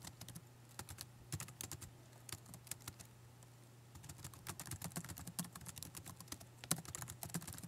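Typing on a computer keyboard: quick runs of key clicks, a pause of about two seconds, then a denser run near the end, over a faint steady low hum.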